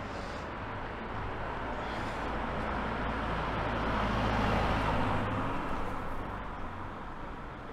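A car passing along the street: a rushing road noise with a low engine rumble that builds to its loudest about halfway through, then fades away.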